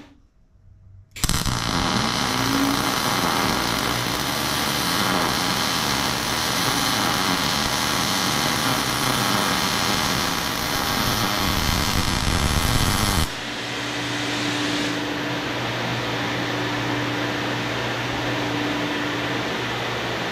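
Wire-feed welding arc crackling and sizzling for about twelve seconds, starting after a second of near silence and cutting off suddenly. Under it and after it, a Lincoln Electric Mini Fume X-tractor runs with a steady hum, pulling away the weld smoke.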